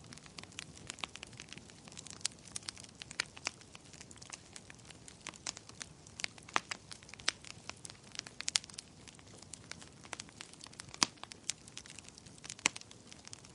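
Wood fire crackling: dense, irregular sharp pops and snaps over a soft hiss, a few louder pops standing out, the loudest about eleven seconds in.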